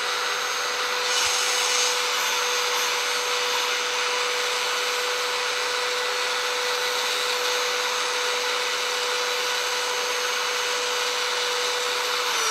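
Handheld power sander running steadily, its sanding pad rubbing on the end of a pear-wood handle as it is sanded smooth. At the very end it is switched off and its pitch starts to fall as it spins down.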